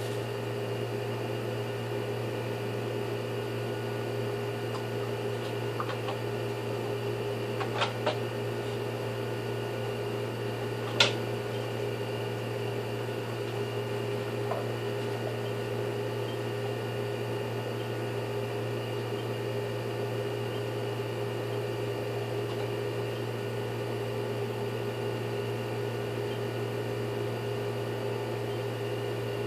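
Steady machine hum, unchanging throughout, with two light clicks about eight seconds in and a sharper click about three seconds later.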